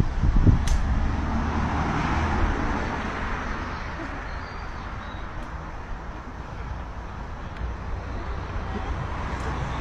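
Road traffic noise: a steady low rumble, with a vehicle passing that swells over the first few seconds and then fades.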